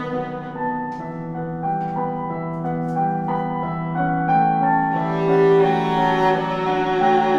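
Viola and digital piano duo playing: the viola holds long bowed notes over piano chords, with a few crisp piano note attacks in the first three seconds.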